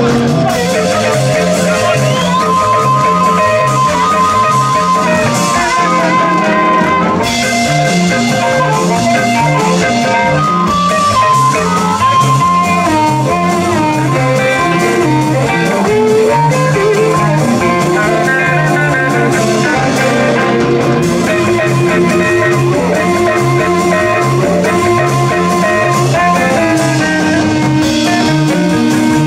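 Live blues band: an amplified Hohner harmonica played cupped against a hand-held microphone carries long held and bending melody lines over electric guitar and drums.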